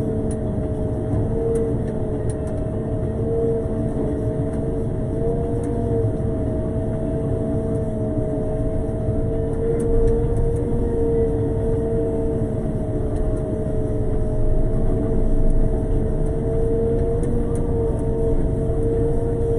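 Road sweeper running while it drives along, a steady whine over a low engine rumble.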